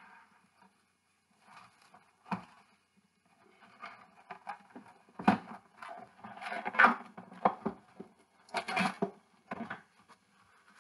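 Plastic cling wrap being pulled from its box and pressed around a ball of dough: irregular rustling with a few short clicks, sparse at first and loudest in the second half.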